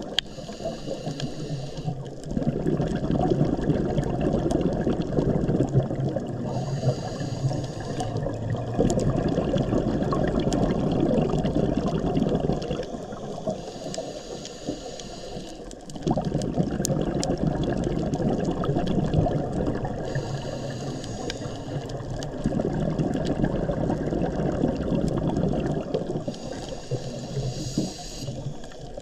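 Scuba diver breathing through a regulator underwater: a short hiss on each inhale, then a long bubbling rumble of exhaled air, repeating about every six or seven seconds.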